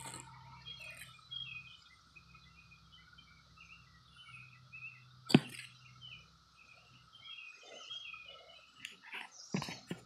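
Faint steady drone of a chorus of 17-year periodical cicadas, with birds chirping over it. A single sharp knock about halfway through, and a few handling bumps and rustles near the end.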